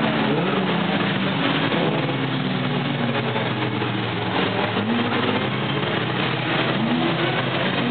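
Several racing sports cars running hard through a corner one after another, their engine notes rising again and again as each accelerates away.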